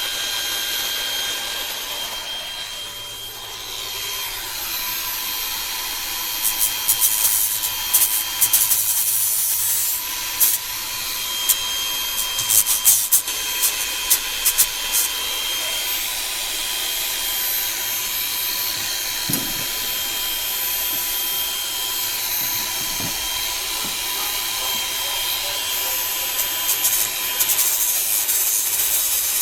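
An aluminum plate's sharp edges being worked down with an abrasive tool: a steady rasping with a thin, steady whine and bursts of harsher scraping.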